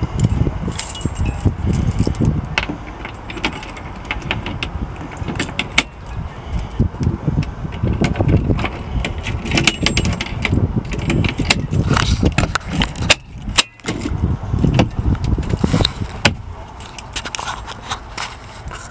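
Handling and movement noise: irregular clicks, light rattles and knocks over a shifting low rumble, as a phone is moved about while filming, with a short lull about two-thirds of the way through.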